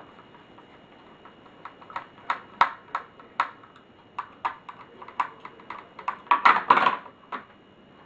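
Irregular clicks and light taps of laptop parts being handled and set down during disassembly, plastic casing and small hard parts knocking, with a busier run of clatter about six and a half seconds in.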